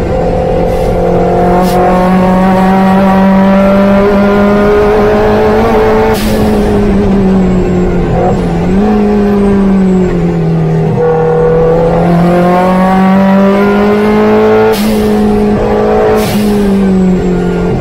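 Opel Speedster's engine heard from inside the open cockpit, running hard at high revs under load, its pitch holding high then dropping and climbing again through several gear changes, with a short rush of noise at a few of the shifts.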